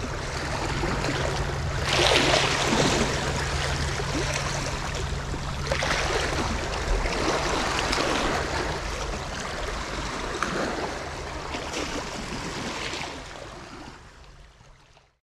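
Small sea waves washing and lapping over rocks and seaweed at the foot of a stone breakwater, swelling in surges every few seconds, then fading out near the end.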